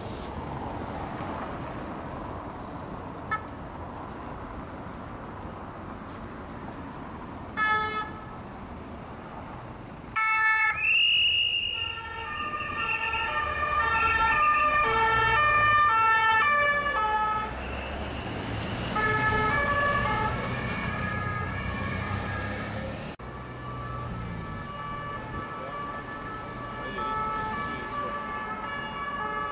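Road traffic passing, then from about ten seconds in, police escort sirens sounding two-tone calls that step back and forth between two pitches, several at once and overlapping. A short blip of siren or horn comes just before them.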